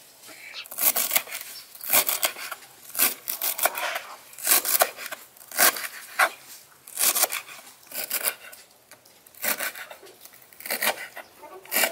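Kitchen knife chopping fresh coriander on a wooden cutting board: short, crisp cutting strokes, irregularly spaced at roughly one a second, some in quick pairs.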